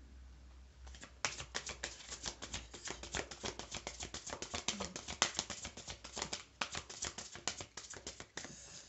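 A deck of Gaia oracle cards being shuffled by hand: a rapid, uneven run of card clicks and flutters that starts about a second in and stops just before the end.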